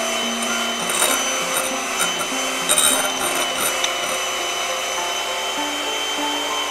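Electric hand mixer running steadily, its wire beaters churning a thick white foam in a glass bowl, the motor giving a steady high whine, with a couple of brief clicks about one and three seconds in.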